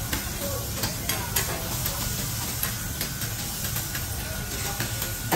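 Beef sizzling on a steel teppanyaki griddle while a metal spatula scrapes across the plate and chops the meat, with several sharp metal taps.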